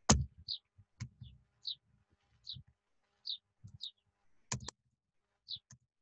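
A few sharp computer keyboard and mouse clicks while code is being edited. The loudest comes right at the start and another about four and a half seconds in. Behind them, a short high chirp repeats about once a second.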